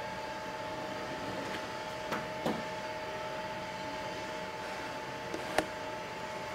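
A steady mechanical hum holding two constant tones, with a few short sharp pops; the loudest pop comes about five and a half seconds in.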